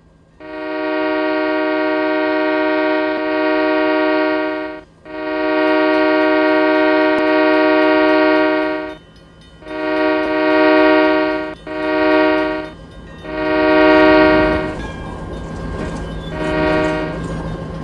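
Locomotive air horn blowing a crossing signal: two long blasts, two short ones, another long one, then a fainter short one. The rumble of the train passing builds from about three-quarters of the way in.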